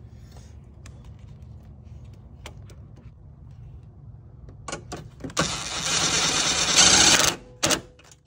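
A few clicks of a tool on metal, then a cordless power tool spins for about two seconds, getting slightly louder and stopping abruptly, running down a 10 mm bolt that was started by hand; one more sharp click follows.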